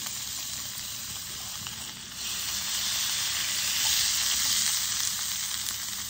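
Meat searing in a cast-iron skillet over a wood fire, sizzling steadily. The sizzle grows louder about two seconds in.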